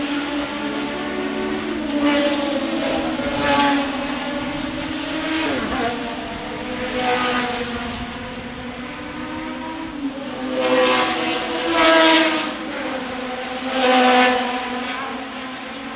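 Group C prototype race cars running flat out on a circuit, several passing in turn, each engine note swelling and falling away; the loudest pass is about twelve seconds in.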